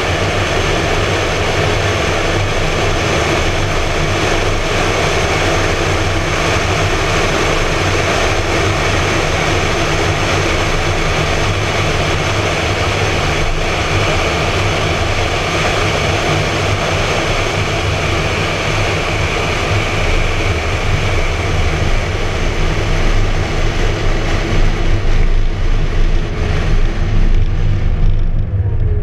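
Wind rushing over a camera mounted outside a 2013 McLaren MP4-12C Spider, with road noise and the car's twin-turbo V8 running steadily underneath as it cruises. Near the end the wind hiss fades as the car slows, and a low engine rumble comes forward.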